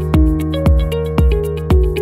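Electronic background music with a steady beat of about two beats a second over a sustained bass line.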